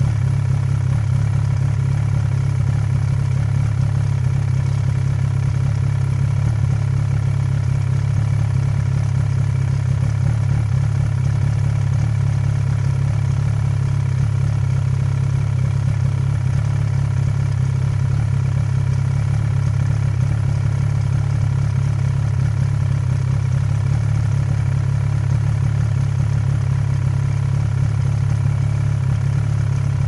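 800 cc racing snowmobile's two-stroke engine running steadily at one even speed, a constant drone with no revving.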